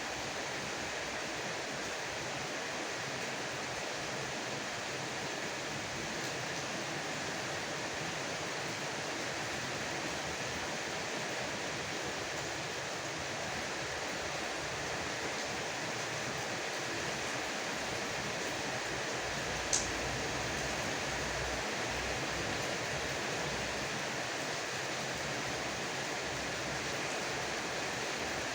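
Heavy rain falling steadily, an even hiss. There is one brief sharp tick about twenty seconds in.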